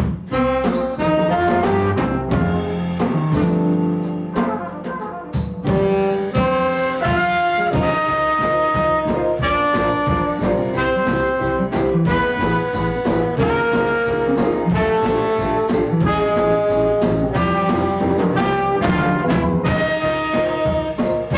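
Live jazz quintet playing: trumpet and saxophone carry the melody over keyboard, upright bass and drums.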